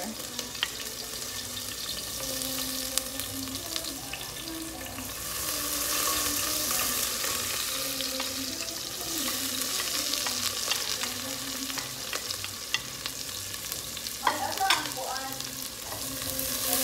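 Chopped ginger, onion and red bell pepper sizzling in hot oil in a stainless steel pot as they are scraped in from a plate and stirred with a wooden spoon. The sizzle grows louder about five seconds in, with scattered clicks of the spoon against the pot.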